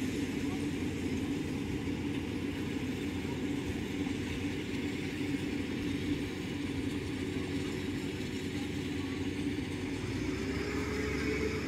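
Rice combine harvester engine running steadily as the machine drives and cuts through the paddy, its pitch rising slightly near the end.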